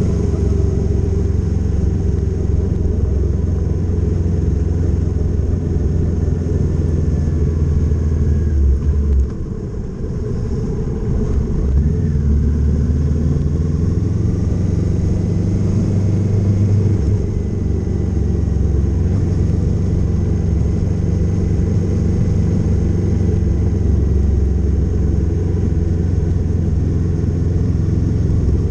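Kawasaki Z650 motorcycle engine running as the bike rides along, mostly steady and deep; about nine seconds in it drops off briefly, then picks up again.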